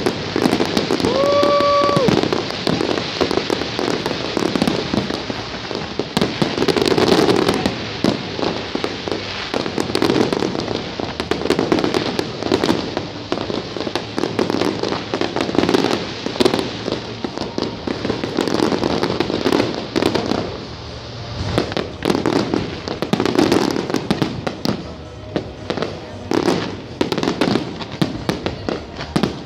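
Large fireworks display going off: a continuous barrage of overlapping bangs from bursting aerial shells, with crackling between them. A short steady tone sounds about a second in.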